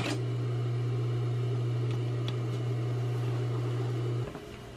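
REX industrial sewing machine's motor humming steadily while the needle is not stitching. The hum stops about four seconds in.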